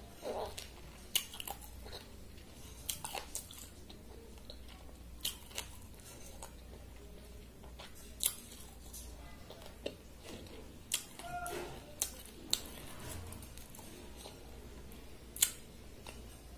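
Close-miked eating by hand: chewing and wet mouth smacks over soft rice soaked in water (panta bhaat), with fingers squishing through the wet rice in a ceramic bowl. Irregular sharp clicks and smacks come about once a second over a low steady hum.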